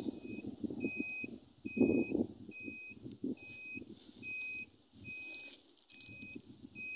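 Handheld Gilda Radar long-range locator beeping steadily: short, evenly spaced beeps of one pitch, a little more than one a second, over louder irregular rustling and scuffing.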